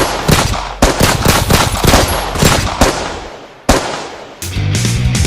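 Rapid machine-gun fire: loud shots in quick succession that thin out and die away, with one last shot a little before the end. Near the end a steady low music tone sets in.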